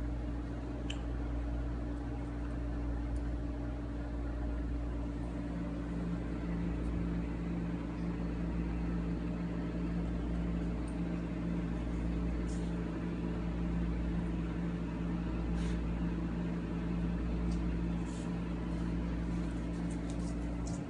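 Steady mechanical hum holding several low tones over a low rumble, with a few faint clicks.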